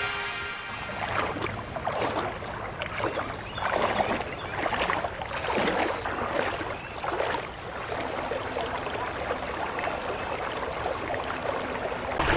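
Creek water running over rocks in a shallow riffle, babbling with uneven gurgles and splashes.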